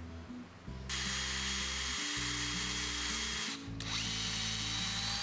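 Power drill running as its bit bores into a plywood strip, starting about a second in with a steady whine. It stops briefly after about three and a half seconds, then starts again with the whine rising in pitch. Background music plays underneath.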